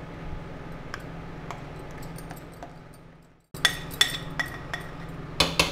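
A spatula scraping and clinking against a glass mixing bowl and the rim of a steel tin as thick batter is scraped out. A few faint clicks over a low hum at first, then a run of sharp clinks in the second half.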